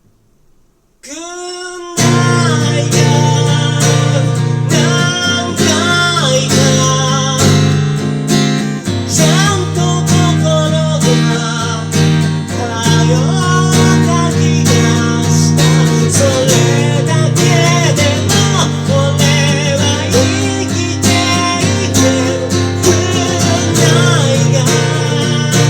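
An acoustic guitar being strummed with a voice singing over it. The voice comes in with a held note about a second in, and the strummed chords join about two seconds in and carry on steadily.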